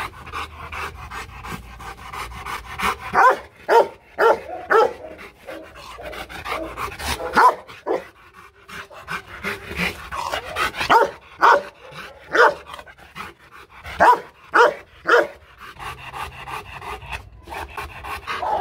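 Rottweiler barking repeatedly, in volleys of two to four deep barks separated by short pauses.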